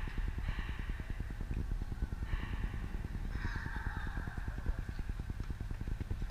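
Wind buffeting the microphone, a steady rough low rumble, with faint distant voices calling out now and then.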